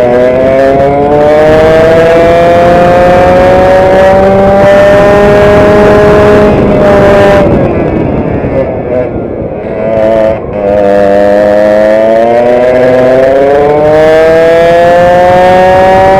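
Onboard racing kart engine at full throttle, its pitch climbing steadily as the kart accelerates along a straight. About halfway through the pitch falls away as the throttle is lifted for a corner, then it climbs again to the end.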